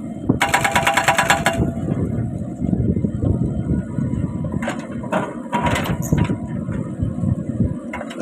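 Kubota U50 mini excavator's diesel engine running, its hydraulic breaker hammering rapidly for about a second near the start. A few sharp metallic clanks follow later.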